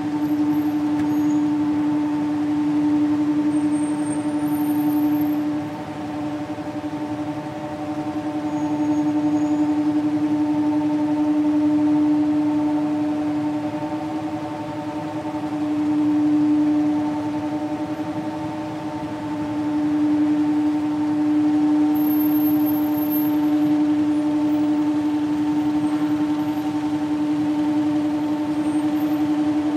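Loud, steady droning hum from the sky, one low tone with fainter higher overtones, holding its pitch while it slowly swells and fades every few seconds. Its source is unexplained.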